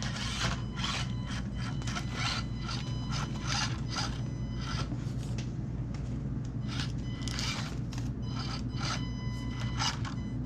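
1/24-scale micro RC crawler climbing through a course: irregular rasping scrapes as its tires and chassis rub and grind over the obstacles, over a steady low hum.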